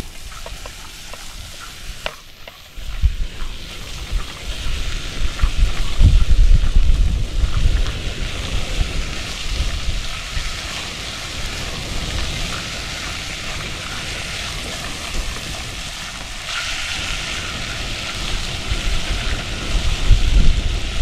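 Fresh green cowpeas sizzling as they fry and are stirred in hot oil with onion, garlic and peppers in a pan. The sizzle grows louder about two seconds in and again later on, over a low rumble that comes and goes.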